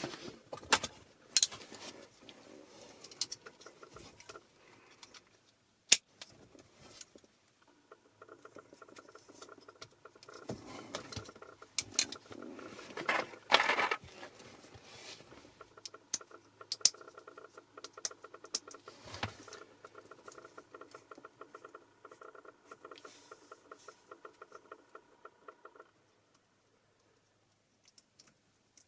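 Hands cutting and handling car stereo wiring: scattered sharp clicks, snips and rustling. A steady hum runs underneath from about a quarter of the way in until near the end.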